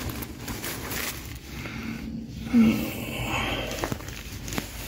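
Shuffling and handling noise from a person moving about while lying under a car, with a few light clicks. A short grunt comes about two and a half seconds in.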